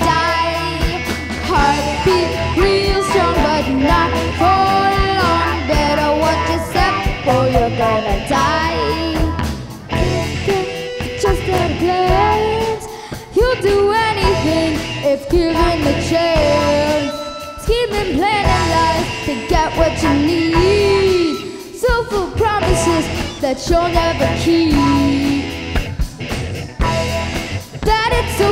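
Live rock band playing: electric guitar, bass guitar, keyboard and drum kit, with a voice singing over them.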